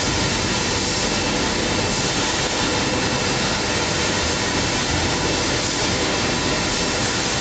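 Steady, even mechanical noise of an automatic bottle labeling line running, its conveyor and labeler motors going without a break.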